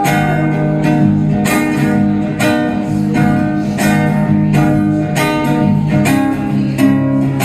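Acoustic guitar strumming chords in a steady rhythm, about two strums a second: an instrumental passage of a song with no singing.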